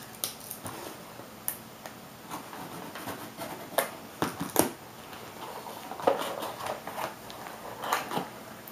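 A small cardboard product box being handled and opened by hand: scattered light taps, scrapes and rustles of cardboard as it is turned over and pulled open.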